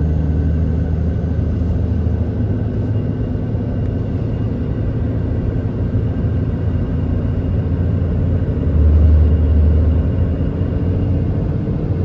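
Pickup truck cab noise while driving at highway speed: a steady engine and road rumble, swelling briefly about nine seconds in.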